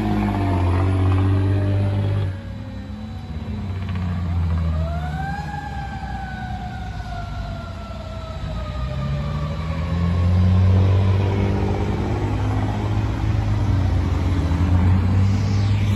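Fire engine siren winding down, then winding up once about four seconds in and slowly falling away over the next several seconds, over the low rumble of the truck's diesel engine as it pulls away.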